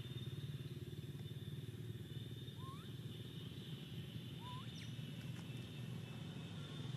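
Steady outdoor background of a low hum and a high, even drone, with two short rising squeaks, one about two and a half seconds in and one about four and a half seconds in.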